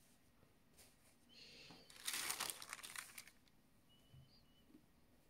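Sheet of parchment paper crinkling as it is laid and smoothed over a T-shirt, in a burst of about two seconds starting a little over a second in.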